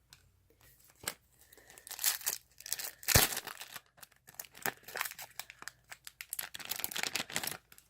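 A foil trading-card pack wrapper being torn open and crinkled by hand: irregular crackling and rustling, with one sharp tearing snap about three seconds in.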